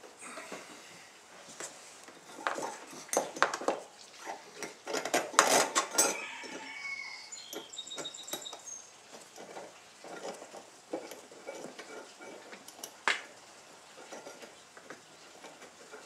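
Small metal hardware clinking, with plastic knocks, as a nut is fitted by hand onto a deck cleat's stud from inside a personal watercraft hull. The clicks are scattered and irregular, busiest about five seconds in, with one sharp click near the end.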